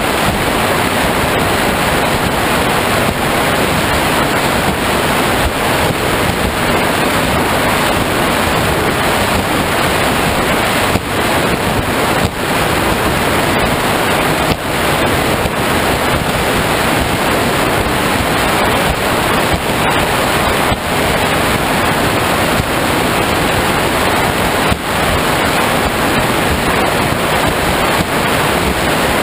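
Wind blasting the microphone and spray and water rushing past the hull of a high-performance powerboat running at speed: a loud, steady roar with no distinct engine note.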